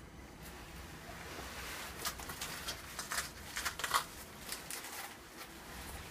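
Clothing rustling: a cloth coat and scarf being pulled on and adjusted around the neck, in a run of short, crisp rustles, busiest around the middle.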